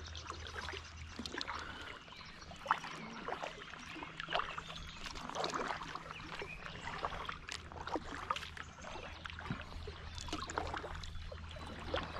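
Kayak paddle strokes: the blades dipping in and water dripping and trickling off them in small irregular splashes, over a low steady hum.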